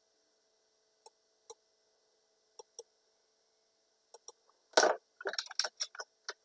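Computer mouse clicks, mostly in pairs, over a faint steady hum; near the end a louder knock is followed by a quick run of clicks.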